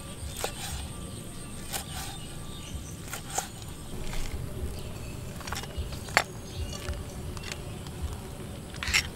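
Scattered knocks and clicks of food preparation, a knife on a wooden cutting board and a metal spoon in a bowl, over a steady high-pitched insect drone.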